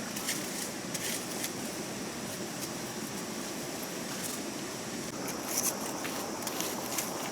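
Stream water running steadily, with scattered light clicks and rustles of things being handled close by.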